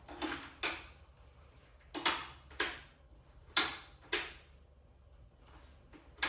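Motorcycle ignition switch clicked on and off in pairs, about every second and a half, with nothing else answering: no power is reaching the bike.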